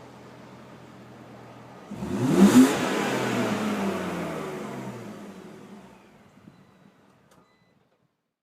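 Supercharged BMW Z4 3.0i's M54 straight-six and its exhaust idling quietly. About two seconds in it is suddenly put under hard throttle: the note jumps loud, climbs in pitch, then drops and fades away over the next few seconds.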